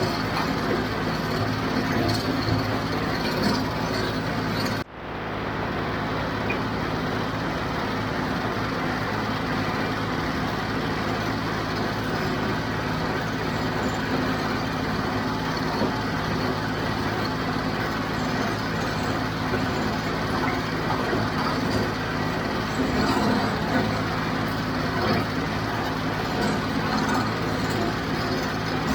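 John Deere 5055 tractor's diesel engine running steadily under load with the John Deere 348 square baler working behind it. The sound drops out briefly about five seconds in.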